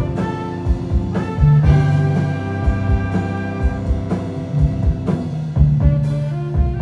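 A big band playing jazz: saxophones and brass holding chords over drum kit and bass, with regular drum hits and a strong low bass line.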